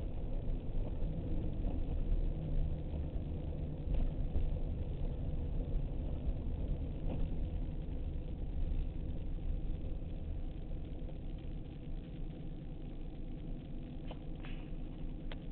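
TVR Chimaera's Rover V8 engine running at low speed, a steady low rumble heard inside the cabin, easing off slightly in the last few seconds.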